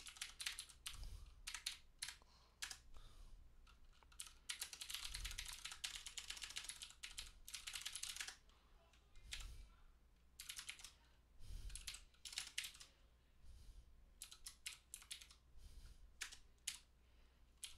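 Computer keyboard being typed on fast, in bursts of rapid keystrokes with short pauses between. The longest run comes about four to eight seconds in, and shorter bursts follow.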